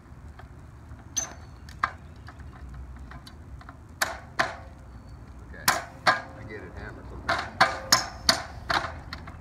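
Metal striking metal on an aluminium extension ladder and its stand-off bracket as it is being fitted: about a dozen sharp clangs, spread out at first, then a quick run of three or four a second near the end.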